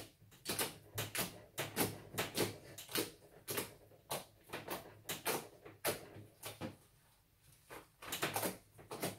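Homemade slime pressed and kneaded by fingers on a tabletop, giving a run of short clicking, popping sounds, about two a second, with a brief pause about seven seconds in.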